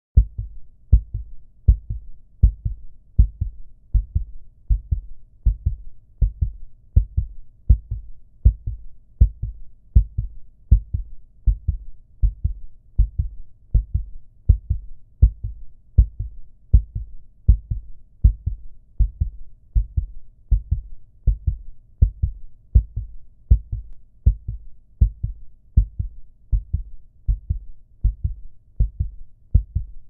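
Heartbeat sound effect: a steady, even rhythm of low double thumps (lub-dub), a little faster than one beat a second, about 78 beats a minute.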